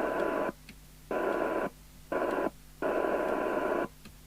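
Amstrad CB901 FM CB radio's loudspeaker giving receiver hiss with a faint steady tone, cutting abruptly on and off about four times and then staying on: the squelch opening and closing as it is being overridden.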